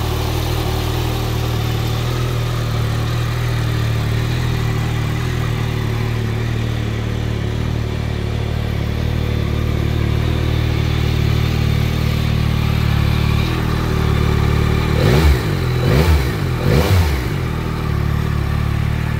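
Yamaha Tracer 9 GT's 890 cc inline-three engine idling steadily in neutral. About fifteen seconds in come three quick throttle blips, each revving up and dropping straight back to idle.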